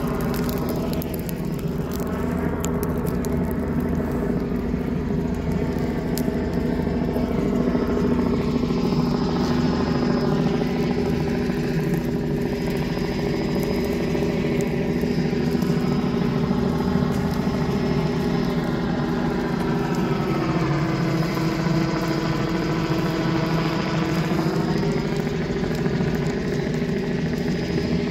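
Helicopter hovering low overhead: steady rotor and engine noise with a thin high turbine whine, its tone sweeping slowly as it shifts position.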